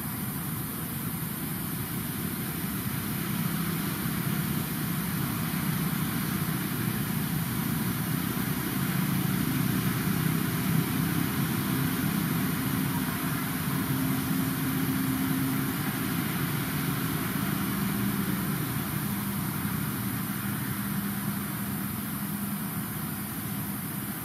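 Steady low drone of an engine running, with faint slowly wavering low tones under a constant high hiss.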